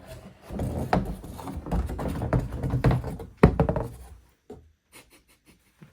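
Handling sounds from a large cardboard box as a 3-foot Grinch decoration is taken out: busy rustling and scraping with many small knocks, one sharp thunk about three and a half seconds in, then a few light taps as it quiets down.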